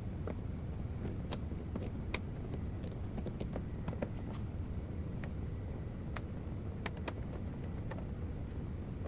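A steady low hum with faint, sharp clicks scattered through it, a handful over several seconds.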